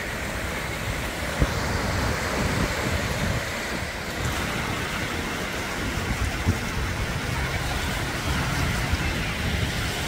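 Small waves breaking and washing over a sandy shore, with a steady wind rumble on the microphone and two brief knocks, about one and a half and six and a half seconds in.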